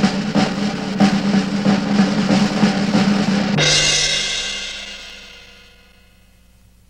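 Film-score percussion: busy snare and bass drumming in a fast roll, cut off about three and a half seconds in by a loud ringing crash that dies away over the next couple of seconds.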